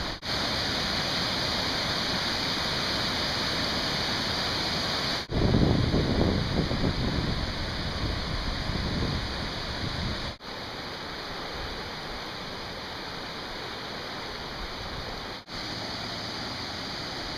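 Heavy hurricane rain and running storm water, a steady hiss, heard in four short clips joined by abrupt cuts. In the second clip low gusts of wind buffet the microphone, and the sound is louder there.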